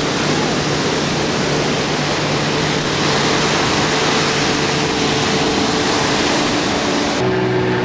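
Ocean surf breaking and washing through the shallows: a loud, steady rush of white water. Near the end the rush suddenly thins.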